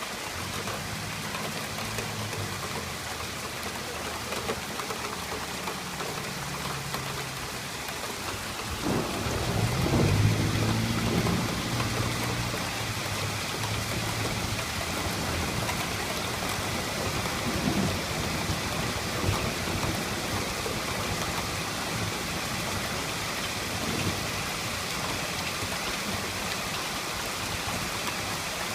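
Heavy rain falling steadily, with a roll of thunder that swells about nine seconds in and rumbles for a few seconds before fading. Two weaker rumbles follow later.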